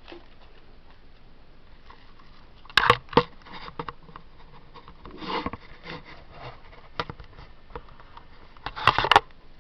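Handling noise: scattered clicks, taps and short rustles as objects are handled, with a cluster of sharp clicks near the end.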